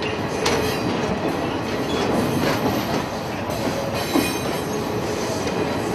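Electric suburban passenger train running past, a steady rumble with its wheels clacking now and then over the rail joints.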